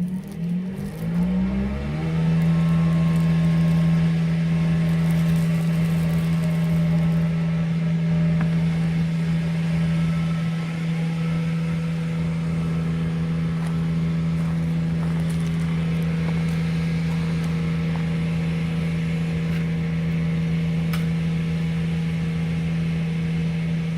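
Septic pump truck's engine-driven vacuum pump sucking out a septic tank: it revs up over the first couple of seconds, then runs at a steady pitch.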